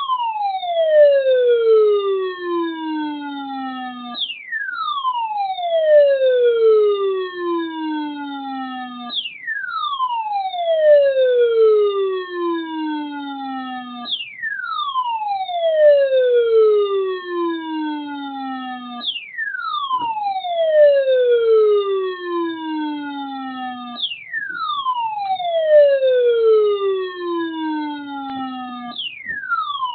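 Electronic siren-like alert tone that falls steeply in pitch from high to low over about four and a half seconds, then jumps straight back up and falls again, repeating about every five seconds.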